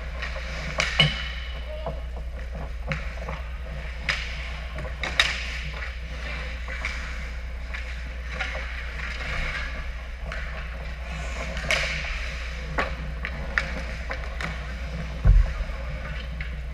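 Ice hockey play: skate blades scraping and carving the ice over a steady low rink hum, with scattered sharp clacks of sticks and pucks. The loudest sound is a heavy thump near the net about fifteen seconds in.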